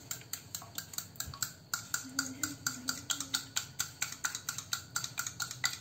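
A metal spoon beating eggs in a bowl, clinking against the bowl in a fast, steady rhythm of about five or six strokes a second.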